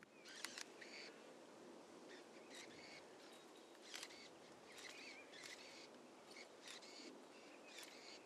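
Quiet open-air countryside ambience with faint, scattered short bird chirps.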